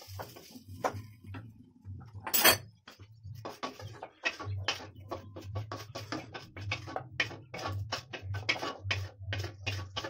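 Wooden spatula scraping and knocking against a brass kadhai in many short strokes as egg is pushed out of the pan, with one louder knock about two and a half seconds in.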